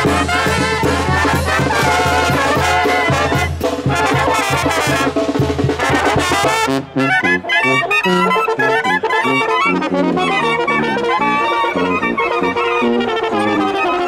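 Mexican banda brass band playing: trumpets over a tuba bass line. The music dips briefly about seven seconds in, then carries on.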